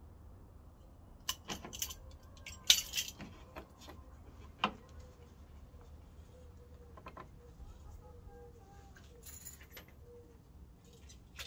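Scattered clinks and knocks of small parts being handled while a front lip spoiler is fitted under a car's bumper. The sharpest clatter is about three seconds in and another knock comes just under five seconds in, followed by only faint ticks.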